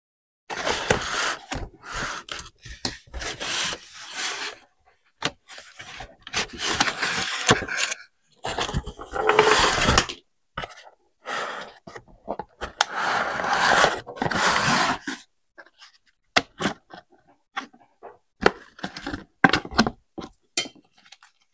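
Packaging being handled during an unboxing: stop-and-start scraping and rubbing, with sharp clicks in between.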